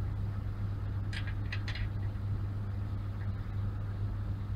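Steady low electrical hum of laboratory equipment, with a few light clicks about a second in as the lid fittings on top of the bioreactor vessel are handled.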